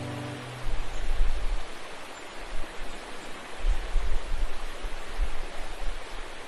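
Steady rushing of flowing water, like a stream, with occasional low rumbles. The last held low notes of the music die away in the first second.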